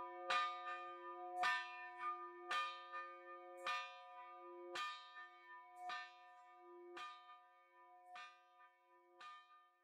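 A church bell in a wooden bell tower struck about once a second, each stroke ringing on with several tones and growing steadily fainter.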